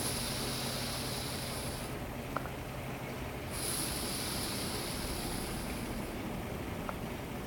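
Boat engine running with a steady low rumble, with two stretches of hissing of about two seconds each.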